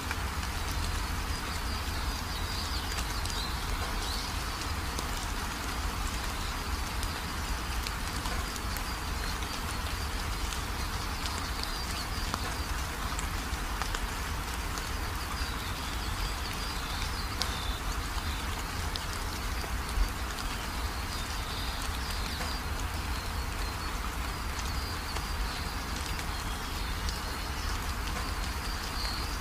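Steady background hiss with a low rumble, faint high chirping running through it, and one brief tick about two-thirds of the way through.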